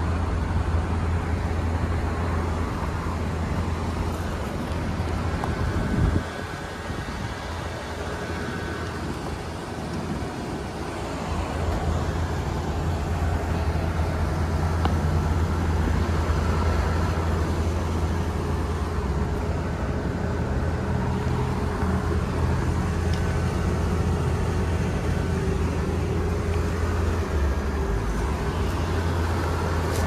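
Trane XR13 central air-conditioner condensing unit running: a steady low hum of compressor and condenser fan. It drops quieter about six seconds in and comes back louder from about twelve seconds in.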